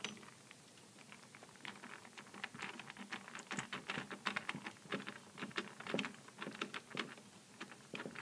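Hand screwdriver driving a screw up into an aluminium handle bracket on a sliding shower door: a run of faint, quick clicks and scrapes that starts about a second and a half in.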